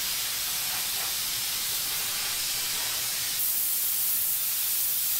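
Plasma cutter cutting through steel plate: a steady hiss from the torch's cutting arc and air, which stops abruptly at the end.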